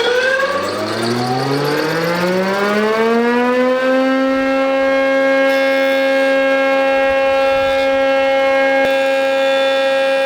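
A stationary woodworking machine's electric motor spins up after being switched on: a whine that rises in pitch for about four seconds, then settles into a steady, loud hum at full speed.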